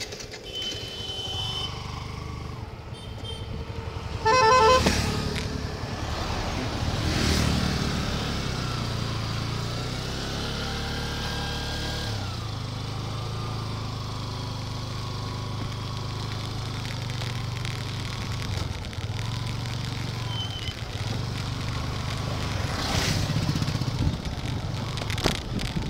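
Motorcycle engine running steadily while riding on the road, with a horn honking briefly about four seconds in.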